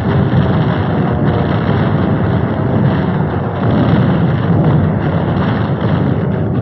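Steady low drone of aircraft engines, a dense rumble that holds level throughout with no separate blasts.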